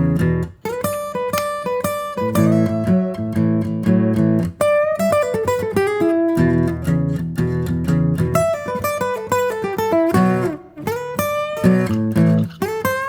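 Background music led by plucked acoustic guitar, notes picked in quick runs over low bass notes, with a few brief breaks between phrases.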